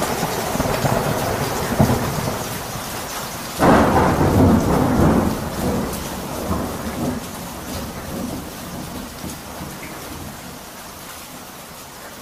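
Thunderstorm sound effect: steady rain with a thunderclap breaking about three and a half seconds in and rumbling away, the whole slowly fading out.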